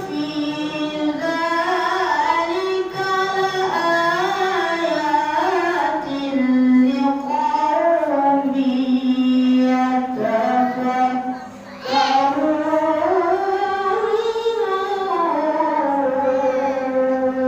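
A boy's voice reciting the Quran in the melodic tilawah style, with long held notes that wind up and down in ornamented turns. There is one short break for breath about twelve seconds in.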